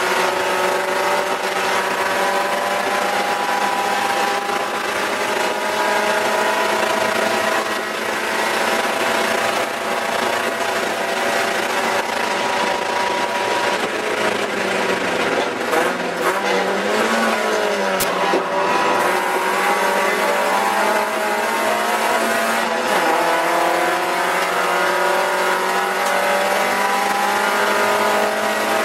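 Spec Miata race car's four-cylinder engine running hard under racing load, heard from inside the cabin. The engine note rises and falls steadily, with a dip and wobble in pitch about halfway through before it settles again.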